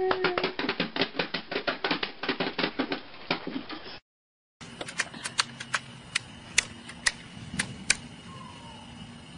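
A baby rapidly beating small plastic toy drums, roughly seven or eight hits a second, for about three seconds. After a brief silent cut, scattered sharp clicks and taps follow.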